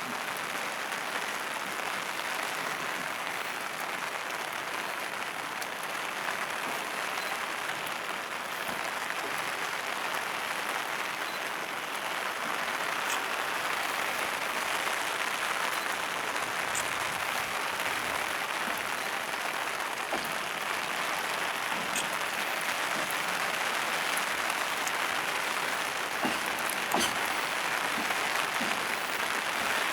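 Container freight wagons rolling slowly through the station, a steady hiss with a few scattered clicks that grows slightly louder partway through.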